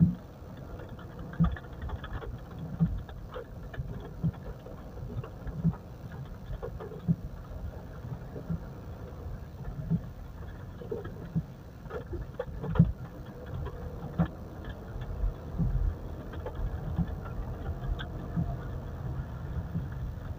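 Mitsubishi Pajero moving slowly on a test drive: a low rumble of engine and tyres with soft thumps about every second and a half. No brake squeal is heard; the squeal is cured after the brake pad work.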